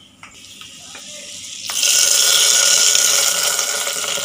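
Hot ghee with fried cashews and raisins poured onto cooked sakkarai pongal, sizzling with a loud, even hiss that starts sharply about a second and a half in. This is the ghee tempering going into the pot, with a few light ladle clicks before it.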